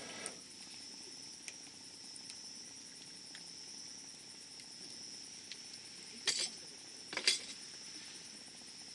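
Wood campfire crackling, with a few sharp pops, the two loudest about six and seven seconds in, over a steady high chirping of insects.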